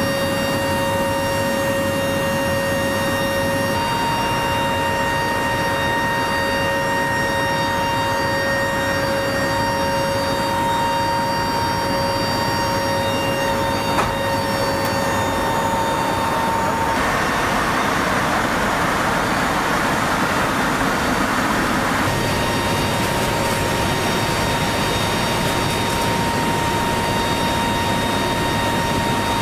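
Lockheed C-130 Hercules's four turboprop engines droning steadily, heard from inside the cargo hold: a heavy rushing noise with several steady whining tones over it. A stronger rush of air noise swells for about five seconds a little past the middle.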